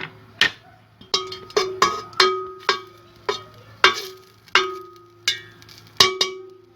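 A metal spoon knocking and scraping against a metal cooking pot while stirring butter as it melts: a dozen or so irregular clinks, each leaving the pot ringing briefly.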